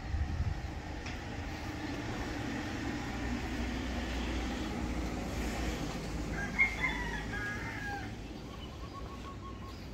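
A rooster crowing once, about two-thirds of the way in, over a steady low rumble.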